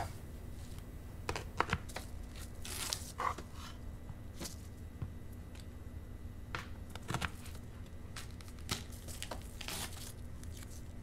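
Knife cutting into and peeling a whole onion on a plastic cutting board: irregular knife taps and the crackle of dry onion skin being pulled off, over a low steady hum.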